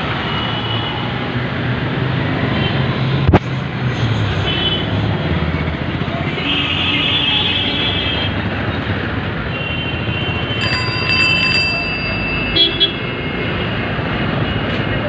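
Busy street traffic: a steady din of passing motor vehicles, with horns tooting, one longer toot about halfway and a series of short beeps a little later. A sharp knock comes about three seconds in.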